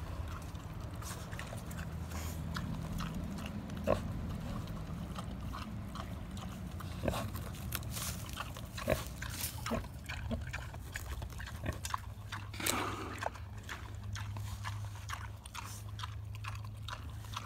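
A wild boar eating pumpkin with its snout in the shell: wet chewing and crunching with many small clicks, and a few louder snaps, the loudest near the end.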